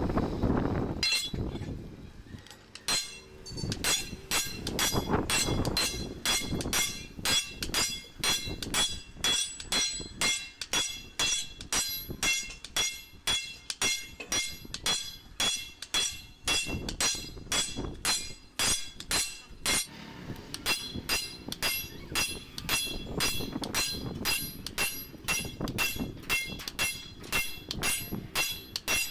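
Sledgehammer blows on a steel truck leaf spring leaf laid across an iron block, about two ringing metal strikes a second, hammering the leaf to raise its arch.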